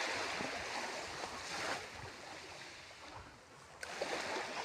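Small sea waves washing on the shore, a steady hiss that swells and ebbs, with a single sharp click near the end.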